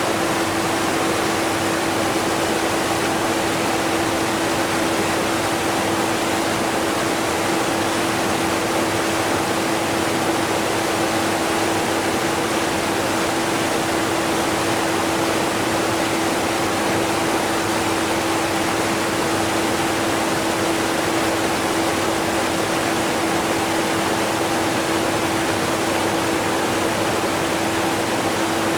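The steady rushing of a strong waterfall mixed with a vacuum cleaner's motor, which shows mainly as a constant low hum under the water noise.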